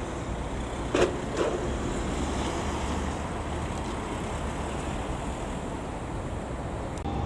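Steady city street traffic noise, a low rumble of cars on the road, with two short sharp sounds a little after a second in.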